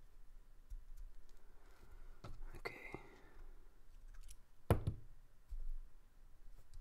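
Small clicks and taps of an aluminum-scaled Benchmade Griptilian folding knife and a screwdriver being handled while trying to seat the pivot. One louder knock comes just before two-thirds of the way through, as the brass-handled driver is set down on the table.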